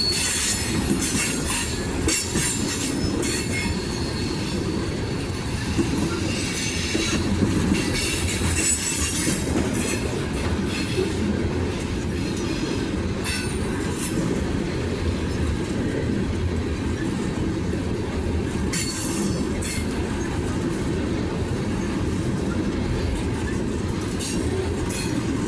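BNSF freight train's cars rolling past: a steady rumble of steel wheels on the rails, with high-pitched wheel squeals that come and go, strongest in the first ten seconds and again briefly around the middle.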